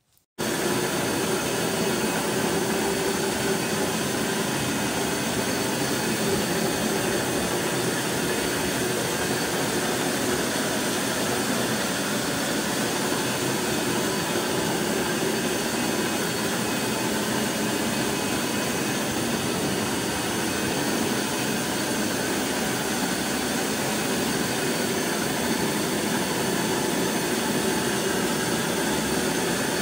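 Hot-water carpet extraction with a Rotovac 360 rotary wand: the steady roar of the portable extractor's vacuum suction pulling water out of the carpet through the spinning head, cutting in abruptly at the start.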